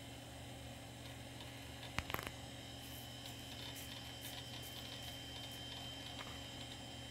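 Vintage Macintosh desktop computer running: a steady fan and hard-drive hum, with a sharp click about two seconds in, then a faint high whine and light ticking.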